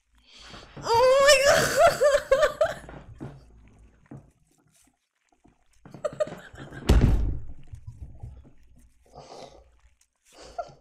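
A woman's high, wavering squeal of laughter lasting about two seconds, then a single heavy thump about seven seconds in, followed by a few short bursts of laughter.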